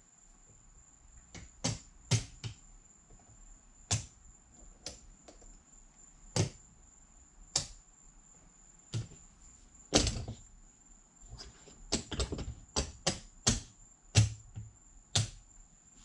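Sharp clicks and knocks at irregular intervals, coming closer together near the end, over a faint steady high-pitched whine.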